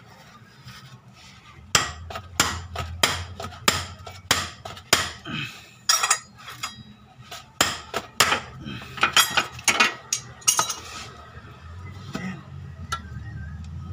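Sharp metallic clinks, roughly two a second, stopping near the end: hand tools, a long ratchet bar and an open-end wrench, knocking against a suspension nut and bracket while it is worked loose or tight.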